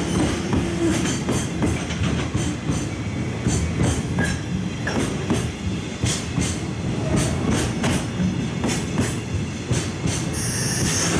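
Container wagons of a freight train rolling past, their wheels clicking irregularly over the rail joints over a steady rumble, with a brief high screech near the end.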